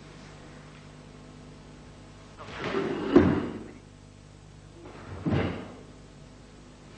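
Two quick karate techniques, each a rushing swish of the cotton gi ending in a sharp snap. The first comes about two and a half seconds in and is the louder; the second follows about two seconds later.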